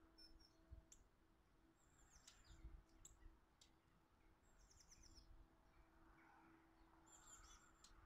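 Faint chirps and short calls of small garden birds, scattered through, with a quick trill about five seconds in, over a faint steady hum.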